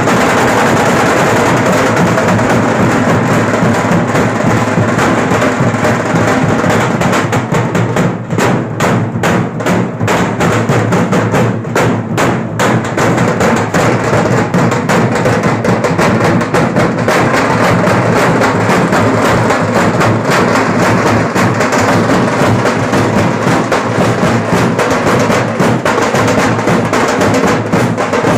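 A dhol pathak of many large dhol barrel drums beaten together with sticks, playing a loud, dense, continuous beat. About a third of the way in the beat opens out into separate, evenly spaced strokes for a few seconds before the full pounding returns.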